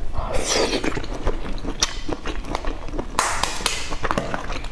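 Close-miked chewing and biting of a hard-boiled egg, full of small wet clicks, with a short crackling stretch about three seconds in as an eggshell is cracked and peeled by hand.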